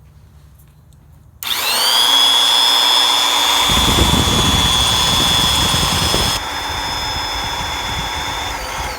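Black & Decker heavy duty electric hedge trimmer switched on about a second and a half in, its motor whining quickly up to speed and running steadily. A coarse rattle joins in for a few seconds midway. Near the end it is switched off and the whine falls away as it winds down.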